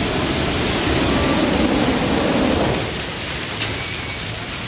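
Steady rushing of water, like a heavy downpour, dropping a little about three seconds in.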